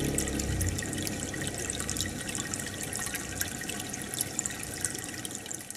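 Aquarium water bubbling and trickling, with many small pops and drips. A low hum underneath stops about half a second in.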